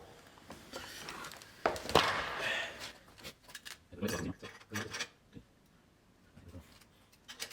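Scattered light clicks and knocks of hand work on a motorcycle exhaust while the engine is off, as a dB killer is fitted into an SC Project silencer.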